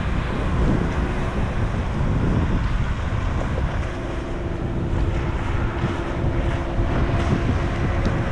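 Wind buffeting the microphone, with the steady engine hum of a small outboard-powered open boat running across the water, clearer in the second half.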